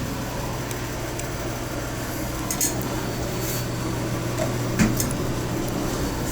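Interior of an Otis traction elevator car travelling at speed: a steady low hum with a few light clicks and rattles from the cab.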